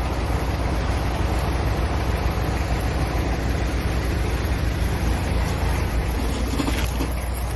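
Vehicle on the move: a steady engine rumble with road noise.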